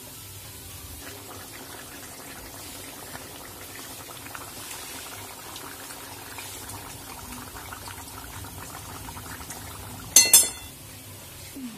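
A pan of fish curry bubbling at a simmer, a steady fizzing with many fine crackles. About ten seconds in, two sharp clattering knocks stand out as the loudest sound.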